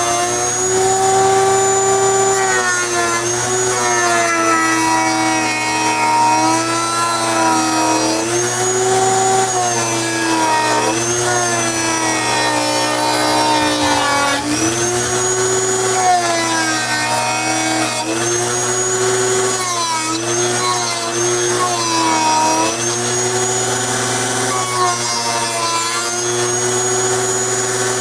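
Dremel rotary tool grinding the edges of a Kydex sheet round, a high motor whine that repeatedly sags in pitch as the bit bites into the plastic and climbs back as it frees.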